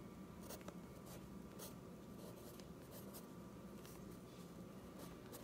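Pencil scratching faintly on sketchbook paper in short strokes, drawing small box shapes.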